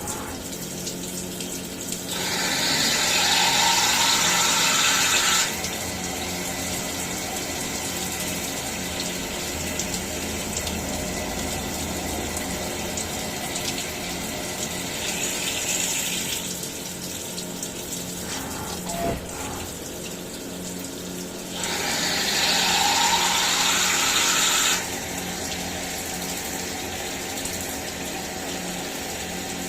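CNC milling machine running steadily with a constant hum and liquid coolant splashing, while it mills the hub bore of a car wheel. Twice, about two seconds in and again about twenty-two seconds in, a louder hiss lasts about three seconds.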